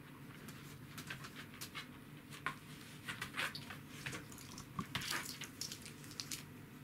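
A Welsh corgi's and a cat's claws clicking and paws scuffling on a wooden floor: irregular light ticks and short scrapes, thickest about three and five seconds in, over a low steady hum.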